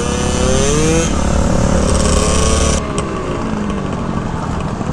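Small two-stroke scooter engine accelerating: its pitch climbs over the first second and holds high. About three seconds in it drops abruptly to a quieter engine note that falls in pitch.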